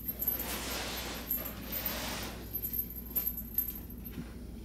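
A tall carpeted cat tree being shifted and nudged into place by hand: rustling and scraping, with several light, sharp clinks scattered through.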